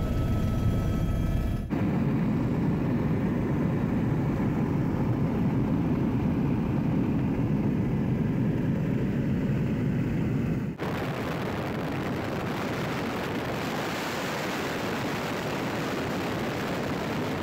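Steady in-flight drone of a Bell Huey-family helicopter's turbine and rotor, heard from inside the cabin. The tone changes abruptly twice, about two seconds in and again near eleven seconds.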